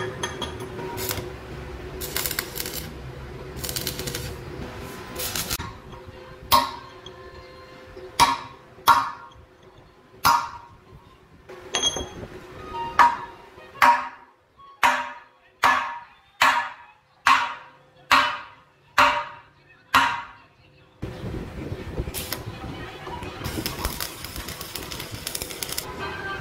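A hammer striking the steel of a tractor trolley's axle beam: about fifteen ringing blows, spaced out at first and then about one every 0.7 s. A steady noise sits under the sound before and after the blows.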